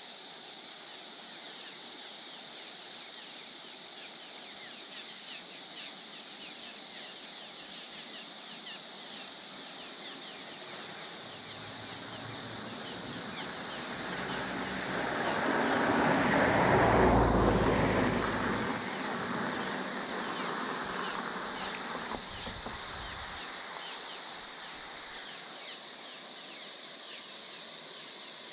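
A vehicle passes, its noise swelling over several seconds to a peak about two-thirds of the way in and then fading. Under it, a steady high drone of cicadas.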